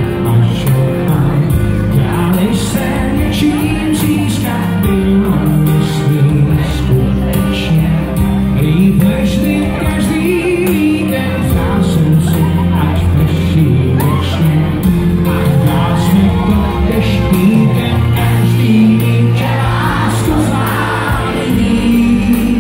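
A male pop singer sings live through a microphone over amplified musical accompaniment.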